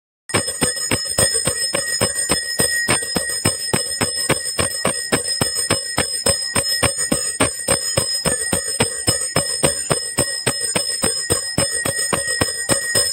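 Hand-held puja bell rung rapidly and steadily, about five strikes a second, with its ringing held between strikes; it starts abruptly just after a cut.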